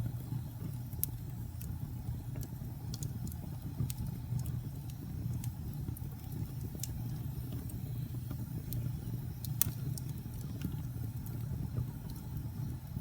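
Wood fire in a fireplace burning with a steady low rumble and irregular sharp crackles and pops, the loudest about a second in and near ten seconds in.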